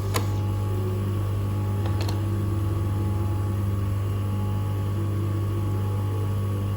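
Manual three-stone lens edging machine's motor running with a steady hum, with a sharp click just after the start.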